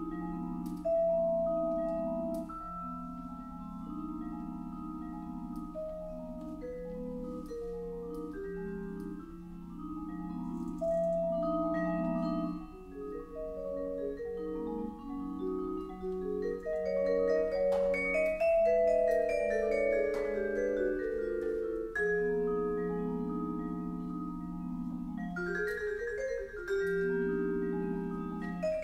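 Solo marimba played with mallets: rolled, ringing chords low down under a melody, with a run of notes climbing upward about two-thirds of the way through and then falling back.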